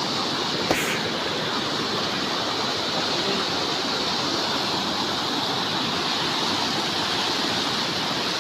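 Waterfall rushing steadily as water pours over and between rocks, with one sharp click under a second in.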